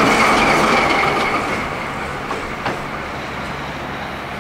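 DE65 diesel locomotive and container freight train going past on the rails and moving away. A high, steady wheel squeal and wheel noise fade over the first couple of seconds, with one sharp clank a little past the middle.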